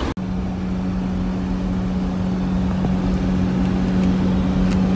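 Vehicle running, heard from inside: a steady low hum over continuous low rumble, starting just after a brief dropout.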